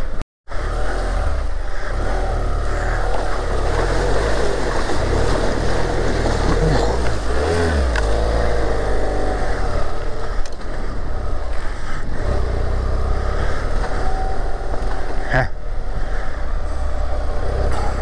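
BMW F650GS motorcycle engine running under load through a deep stream ford, its revs rising and falling around the middle, with a steady rushing noise over it. The sound drops out for a moment just after the start, and there is a single sharp knock near the end.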